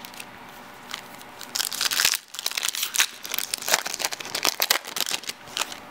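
Foil wrapper of a baseball card pack crinkling in irregular bursts as hands tear it open. It starts about a second in, is loudest around two seconds, and stops just before the end.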